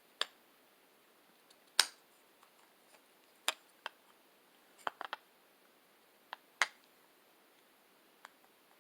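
Sharp clicks and taps, about ten spread irregularly, of small hard revolver parts being handled and fitted, as the grip panels go onto the frame.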